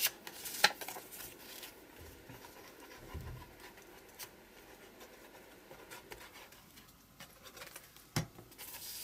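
Faint rubbing and scraping of a plastic glue bottle's nozzle spreading glue across a paper journal page, with a couple of sharp taps from handling, one just after the start and one near the end.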